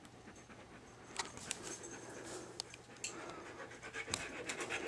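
A dog panting close up, faint, with a few scattered clicks and scuffs.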